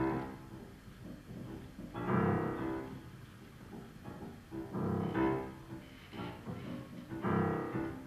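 Grand piano playing sparse chords, three loud ones struck about two, five and seven seconds in and each left to ring, with quieter notes between. One hand plays the keys while the other reaches inside the piano onto the strings.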